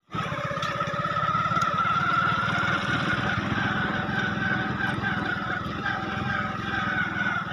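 Honda CD 70's small single-cylinder four-stroke engine running under way, with a wavering whine above the engine note that rises slightly in pitch over the first couple of seconds and then holds. The whine is the noise of the clutch sprocket (clutch gear) set.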